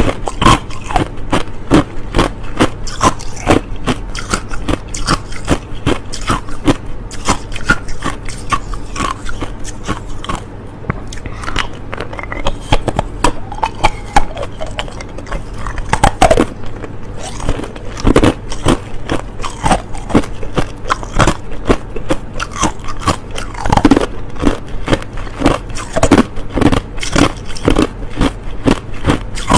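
A person biting and chewing clear hard crushed ice close to the microphone, a constant run of loud, irregular crunches and cracks.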